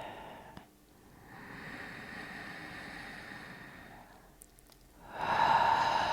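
A person breathing slowly and audibly: a long, soft inhale, then about five seconds in a louder, sigh-like exhale.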